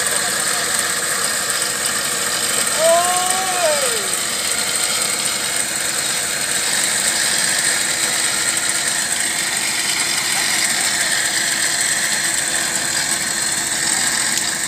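Off-road 4x4's engine running steadily as the vehicle is pulled on a tow line out of a deep mud hole. A short high tone rises and falls about three seconds in.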